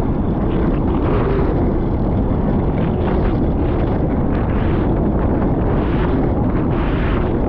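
Strong wind buffeting the microphone of a GoPro on a Hobie 16 catamaran under sail, a steady low rumble with water rushing and splashing against the hull in irregular gusts.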